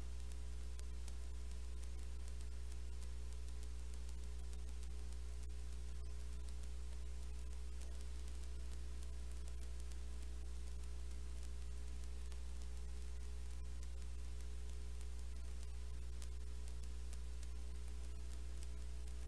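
Steady electrical hum with a ladder of overtones, under an even hiss and scattered light crackle.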